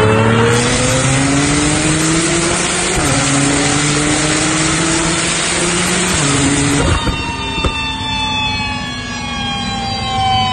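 A Porsche 991 Turbo's twin-turbo flat-six, fitted with an upgraded turbo kit, making a wide-open-throttle dyno pull: its pitch climbs under a loud roar with a brief dip about three seconds in. About seven seconds in the throttle closes, a couple of sharp pops follow, and the revs wind down with a falling tone.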